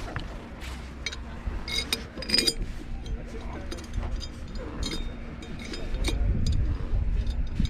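Metal clinks and ticks from a stainless steel clamp-on rod holder as its T-bolt clamp is handled and turned, with a cluster of sharp clinks about two seconds in. A low rumble underneath grows stronger near the end.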